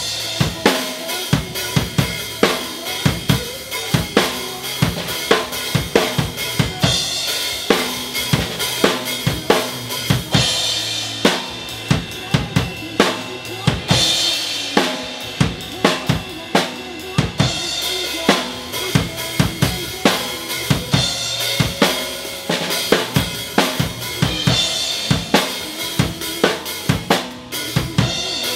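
Acoustic drum kit played live in a steady pop-rock groove: bass drum and snare on the beat, hi-hat between, and crash cymbals at several points.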